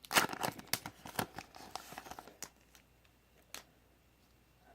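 Foil wrapper of a Pokémon card booster pack crinkling and rustling as it is handled, dense crackles for about two and a half seconds, then a couple of single clicks and near quiet.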